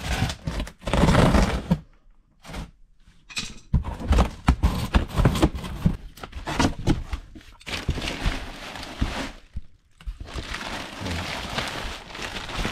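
Cardboard shipping box being slit open with a blade and its flaps pulled back: scraping, ripping and irregular thumps of cardboard, then a steadier rustle of plastic wrapping near the end.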